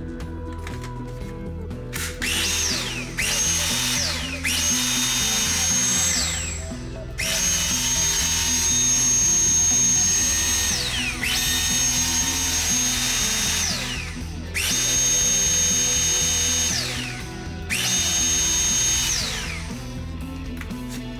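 Dyson V8 cordless vacuum switched on and off about seven times: each time its motor whine rises quickly to a high steady pitch, holds for one to three seconds, and falls away when released. Background music plays underneath.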